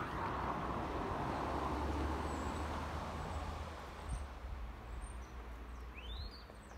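Low rumble of a passing vehicle, loudest for the first few seconds and then fading away. Short bird chirps come in over the fading rumble near the end.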